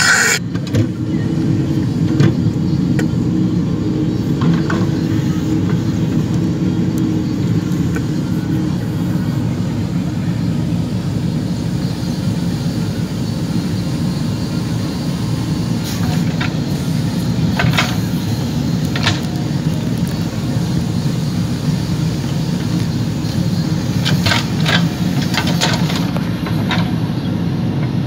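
JCB 3DX backhoe loader's diesel engine running steadily under load as the backhoe arm digs a trench, with a few sharp knocks about two-thirds through and again near the end.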